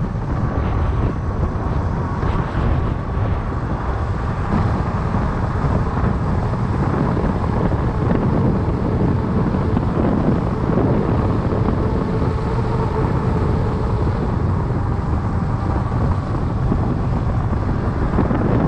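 Wind rumbling on the microphone with steady rolling noise from fat-bike tyres on an asphalt path, a faint even hum running through it.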